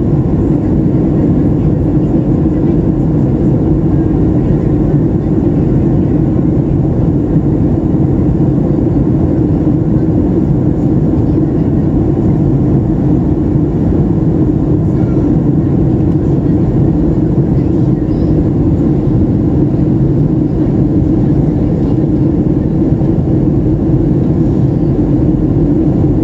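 Steady cabin drone of a Boeing 737 airliner in flight, heard inside the cabin by the wing: engine and rushing-air noise, heavy and low.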